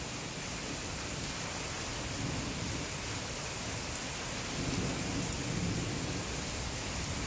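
Monsoon thunderstorm: steady rain falling, with a low rumble of thunder building about halfway through.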